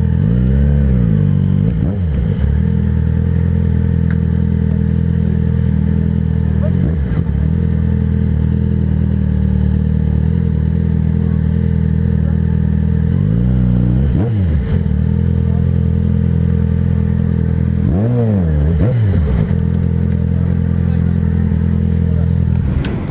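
Motorcycle engine running steadily at low revs as the bike rolls at walking pace, with several short throttle blips that rise and fall in pitch.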